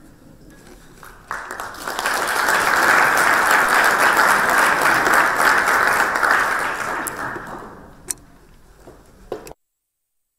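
Audience applauding: the clapping starts about a second in, holds loud for several seconds, then dies away, with a single knock near the end before the sound cuts out abruptly.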